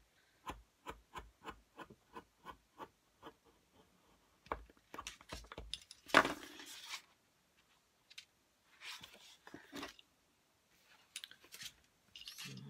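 A We R Memory Keepers Sew Easy hand stitching tool is pushed across paper, its needle punching through the sheet with a steady run of sharp clicks, about three a second. About halfway through there is a louder scrape of paper being handled, then a few softer scrapes.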